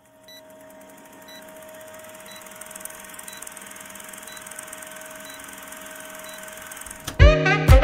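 Film-countdown leader sound effect: a steady hiss and hum with a short, high beep once a second. About seven seconds in, music with a drum beat starts.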